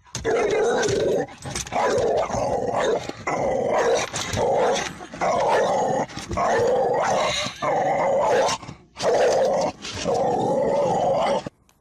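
A dog vocalizing in a run of about nine sounds, each lasting up to about a second, with short breaks between them; it stops suddenly near the end.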